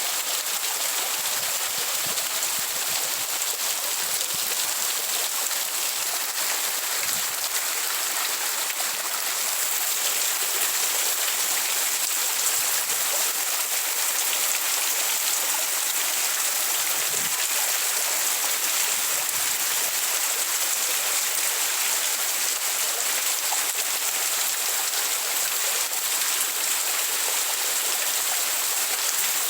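Rain falling steadily: a continuous, even hiss with no change in strength.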